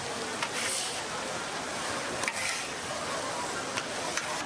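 Street-food cooking: a steady sizzling hiss of food on a hot cooking surface, with a few sharp clicks of metal utensils and short louder flares of sizzle.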